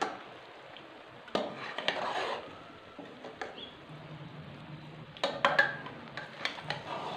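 A metal spoon scraping and clinking against a metal cooking pot as steamed biryani rice is turned over and mixed. Sharp clinks and short scrapes come in clusters, about a second and a half in and again around five seconds in.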